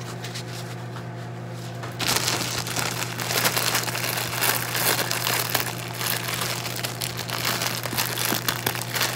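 Plastic wrapper of a Maruchan ramen noodle packet crinkling continuously as it is squeezed and handled, starting about two seconds in. Before that only a steady low hum.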